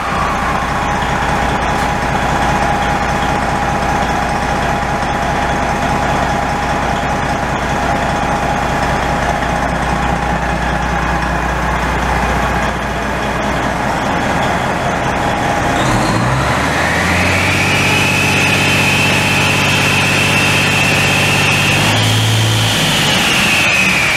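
Remanufactured Detroit Diesel Series 60 inline-six turbo diesel running on a test stand during its break-in run, with a steady turbocharger whine over the engine's hum. About two-thirds of the way through it is brought up to a higher speed, the whine rising and holding there, then starting to fall back near the end.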